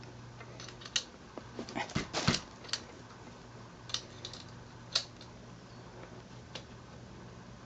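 Scattered clicks and light knocks of metal bike parts and tools being handled during assembly, bunched together about two seconds in, then a few single clicks, over a faint steady hum.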